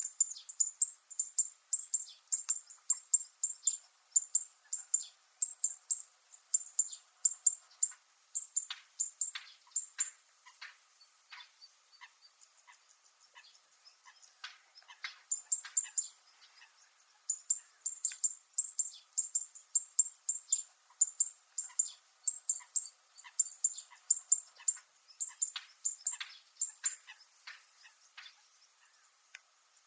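Zitting cisticola (fan-tailed warbler) singing: a long series of sharp, high, metallic 'zit' notes at about two to three a second. The series breaks off for a few seconds partway through and then resumes.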